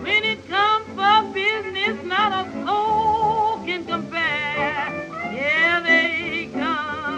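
Old-time jazz record: a lead melody line with wide vibrato and notes that swoop up into pitch, over a band accompaniment.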